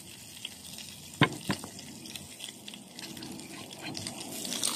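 Cubes of beef fat sizzling in a frying pan as they render, faint at first and louder near the end. Two sharp knocks come about a second in.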